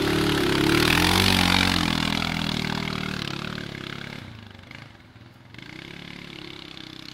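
A Suzuki KingQuad ATV's single-cylinder four-stroke engine revs as it pulls away at close range, loudest about a second in. It then fades as the quad rides off down the trail, leaving a quieter steady engine hum.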